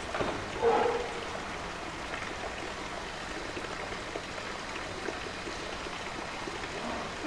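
Steady rush of running water, with a brief louder knock about a second in.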